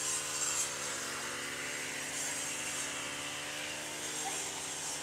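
Several small-engine brush cutters running steadily while cutting grass, their engine notes overlapping in a continuous drone.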